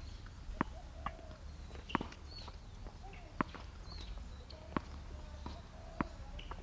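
Tennis ball being tapped with a racket and bouncing on a hard court: about six sharp, separate knocks spaced irregularly a second or so apart. Faint bird chirps sound between them.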